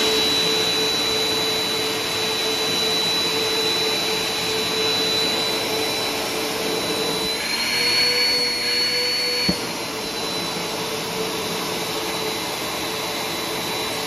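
BISSELL CleanView Compact upright vacuum running at full suction, a steady motor whine with a rush of air. A little past the middle the wand's opening is covered with cloth, the airflow is choked and the whine rises slightly for about two seconds, then it drops back to its normal pitch with a click.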